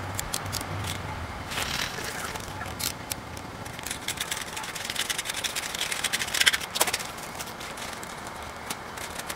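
A block of hard ice being scraped and chipped with a hand tool: a run of sharp scratches and clicks, busiest about two-thirds of the way through.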